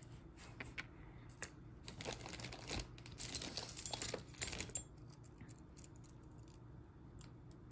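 Small clicks and rustling of costume jewelry being handled and set down on a tabletop, busiest about four seconds in, then dying away to a faint background hum.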